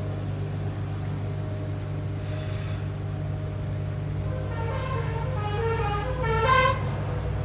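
A steady low hum throughout, with a melodic run of short pitched tones stepping up and down in pitch from about four seconds in, loudest near the end, like a musical vehicle horn.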